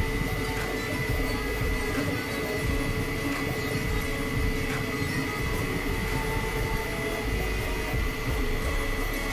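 Elegoo FDM 3D printer running mid-print: stepper motors driving the print head and bed, with cooling fans running. A steady high whine and a lower hum hold throughout over a busy low mechanical rumble.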